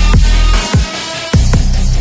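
Background music: a heavy electronic track with a deep sustained bass and booming drum hits. The bass drops out briefly about a second in, then comes back.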